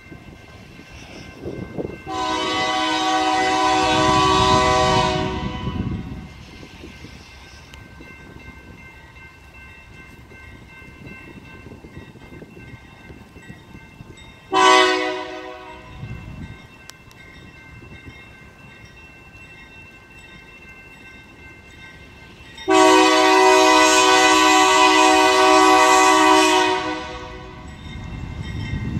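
BNSF diesel locomotive's multi-chime air horn sounding the grade-crossing signal as the train approaches: a long blast about two seconds in, a short blast about halfway, and another long blast near the end. A low locomotive rumble runs under the horn and grows as the train nears.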